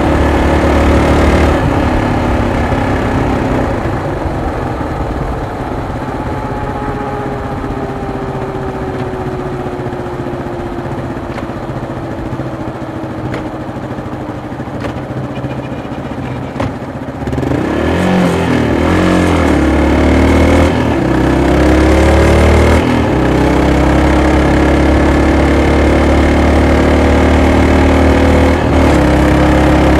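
Yamaha Serow 225's air-cooled single-cylinder four-stroke engine and exhaust while riding. The engine note falls slowly and quietens as the bike slows, then about seventeen seconds in it rises in several steps as the bike accelerates, settling into a steady, louder cruise near the end.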